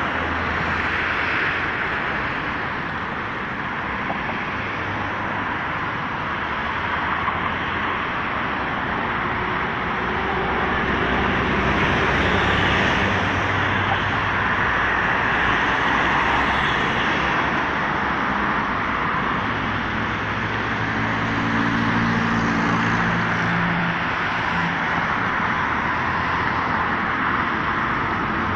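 Steady road traffic noise: cars passing on a busy multi-lane city road, with the engine of a heavier vehicle standing out as it goes by about two-thirds of the way through.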